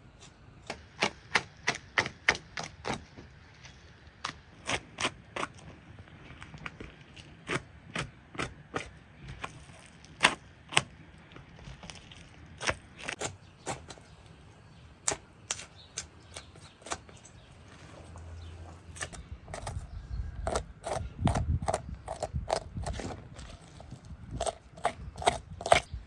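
Knife work on a raw bull leg on a wooden board: irregular sharp clicks and taps as the blade cuts through meat and membrane and knocks against the board, with a few heavier thuds of the leg being handled about three-quarters of the way in.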